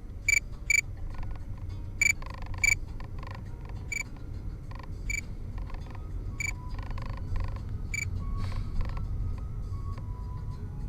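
Radar detector's alert beeps: short high-pitched beeps repeating about once a second, some in quick pairs, warning of a Cordon speed camera ahead. A steady low rumble of car cabin road noise runs underneath.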